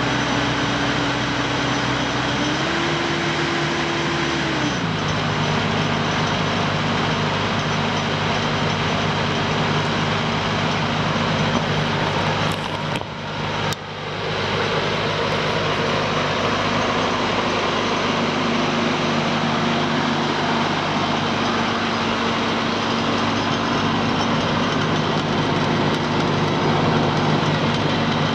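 The TSE DPT-60 drum puller's 100 HP water-cooled diesel engine running steadily. Its speed rises for a couple of seconds about three seconds in, then drops to a lower steady run.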